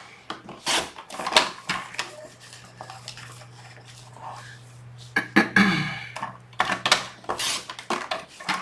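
Clicks, taps and light clatter of craft tools and cardstock being handled on a work table while the cardstock is trimmed to size, over a steady low hum.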